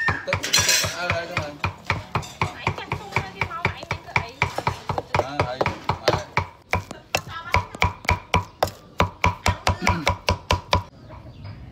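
Cleaver chopping on a round wooden chopping block, mincing chili paste in fast, even strokes at about three or four a second, which stop abruptly near the end.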